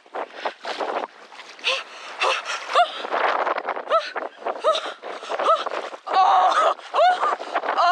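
A woman's wordless exclamations and gasps, a string of short rising-and-falling 'ooh' sounds with breaths between, as she reacts to the cold sea water during a winter swim.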